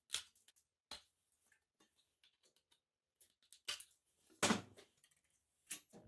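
Aviation snips and a thin galvanized steel plate being handled on a steel workbench: a handful of separate sharp metallic clicks and knocks, the loudest a heavier knock about four and a half seconds in.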